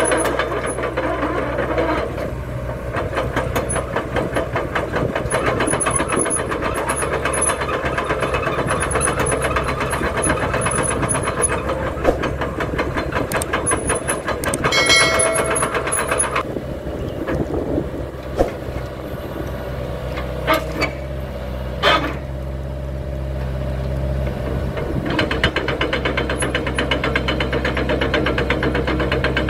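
Hitachi Zaxis ZX75US compact excavator's diesel engine running, its note rising and falling as load comes and goes while the machine works. A few sharp metallic knocks stand out, and there is a brief high tone about halfway through.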